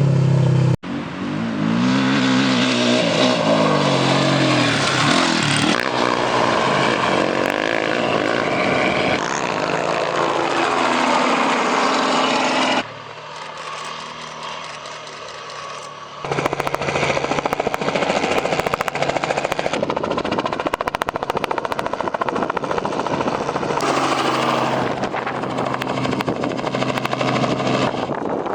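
Motorcycle engines revving up and down through the gears under hard riding, with rushing wind noise. The sound changes abruptly several times as different clips cut in, and there is a quieter stretch a little before the middle.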